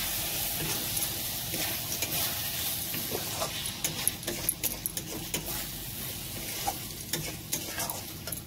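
Chopped tomatoes and spice masala sizzling in a kadai while a metal spatula stirs them. The spatula scrapes and clicks against the pan, more often in the second half.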